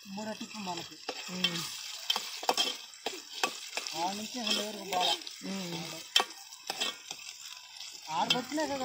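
A long metal ladle stirring and scraping chopped vegetables frying in a metal pot on a wood-fired mud stove. The food sizzles, and the ladle makes repeated sharp clicks against the pot.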